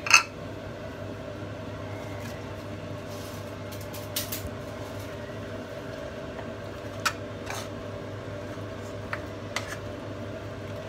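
Gloved hands mixing spiced raw mutton in a pressure cooker, with a handful of soft clicks and taps, over a steady mechanical hum. A sharp clack right at the start as the emptied plate is set on the counter.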